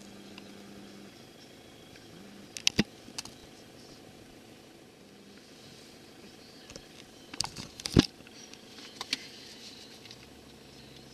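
Off-road 4x4 SUV engines running faintly at low speed, broken by several sharp knocks and clicks: a couple about three seconds in, the loudest cluster around eight seconds, and one more near nine seconds.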